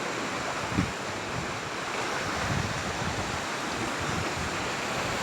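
Sea surf washing against coastal rocks, a steady rushing hiss, with wind buffeting the microphone in low bumps, one about a second in.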